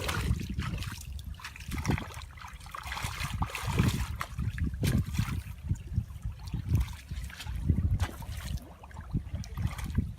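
Water splashing and trickling, with irregular low rumbling and scattered sharp clicks.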